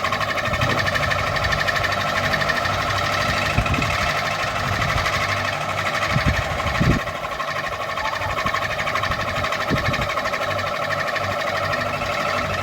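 Ceiling fan running steadily: a whirring motor hum with several held tones and a fast flutter, and a few soft low thuds.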